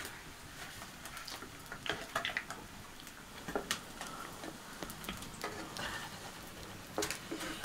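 Fish frying in hot oil in a pan, a faint steady sizzle, with scattered light clicks and knocks of a utensil stirring against the pan.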